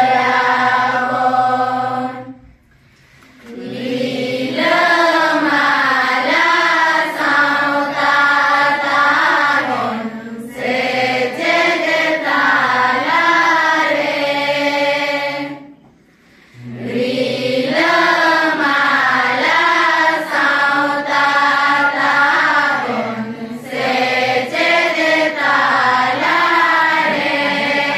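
A large group of young women and children singing a Santali song together in unison, with no instruments. The phrases break for short breaths about two and a half seconds in and again midway.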